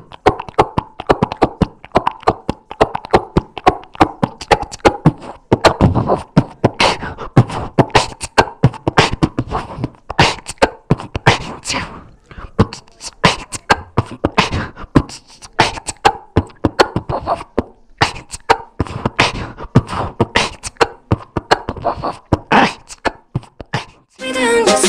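A person beatboxing: fast, irregular vocal percussion of clicks and pops, with recorded music starting just before the end.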